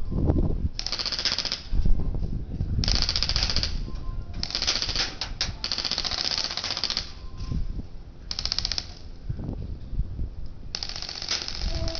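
Airsoft rifles firing full-auto, in about six rapid-fire bursts of half a second to a second and a half each, with short pauses between.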